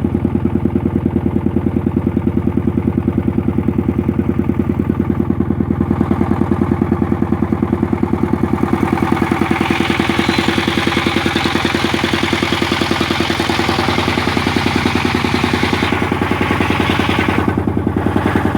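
Engine of a sago-processing machine running with an even chugging beat. From about halfway in, a rasping hiss joins it for several seconds, then drops away near the end.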